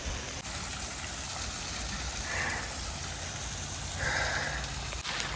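Small woodland waterfall running: a steady rush of falling water.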